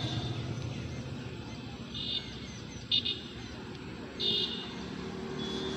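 A bird giving short high chirps, three of them about a second apart, the middle one loudest, over a low steady background rumble.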